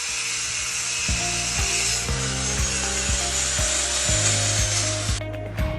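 A power tool cutting material: a steady harsh hiss that stops suddenly near the end, over background music with a steady beat.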